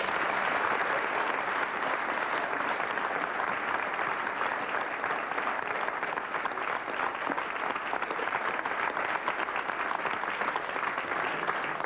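Audience applauding: many hands clapping at a fairly steady level.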